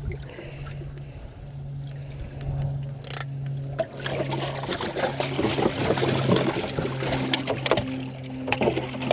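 Water pouring and trickling in a bass boat's livewell over a steady low pump hum; from about four seconds in, the splashing turns choppier and busier as the water is stirred.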